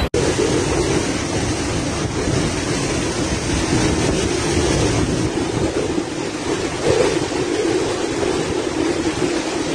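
Typhoon-force wind gusting hard, surging and easing, with the gusts buffeting the phone's microphone. The sound drops out for an instant just at the start, at an edit.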